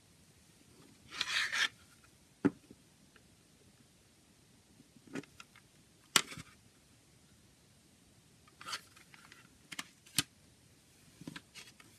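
Plastic CD jewel case being handled: a brief scrape about a second in as it is lifted off the table, then scattered sharp plastic clicks and taps as it is turned over and its hinged lid is opened.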